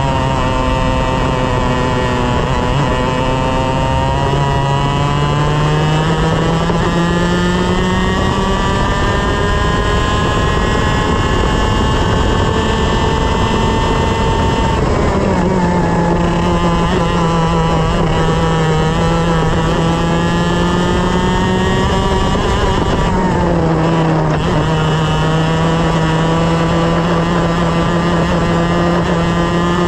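125cc two-stroke TaG kart engine at racing speed, heard on board. The revs climb slowly through the first half, drop sharply about halfway through as the kart slows for a corner, then hold and rise again. There is a second short dip about three quarters of the way in.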